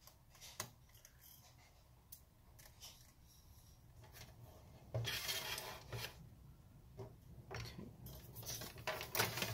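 Precision screwdriver backing out small screws from a bracket inside a laptop: faint scattered clicks and scrapes of the bit and hand against metal, with a louder rustling scrape about five seconds in and again near the end.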